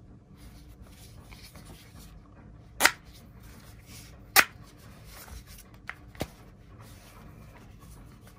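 Sennheiser HD 400S headphones being handled and their adjustable headband worked: quiet rubbing, with two sharp clicks about a second and a half apart near the middle, then two fainter clicks.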